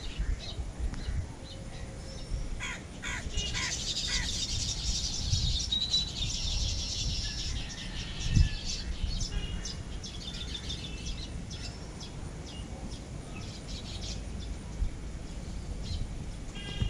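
Birds chirping and calling rapidly, thickest in the first half, over a low rumble, with a single dull thump about halfway through.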